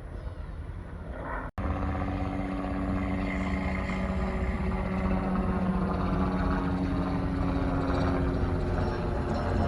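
A large engine running steadily with a low, droning hum. It starts abruptly at a cut about a second and a half in, after quieter outdoor background noise.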